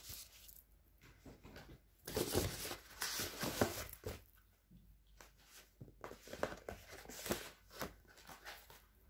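Paper photo prints and their card packaging being handled and put away: rustling and crinkling, loudest for a couple of seconds about two seconds in, then a few lighter taps and rustles.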